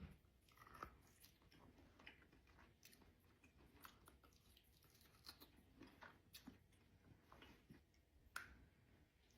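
Faint close-miked chewing and biting of food: small wet mouth clicks scattered throughout, with one sharper click a little over eight seconds in.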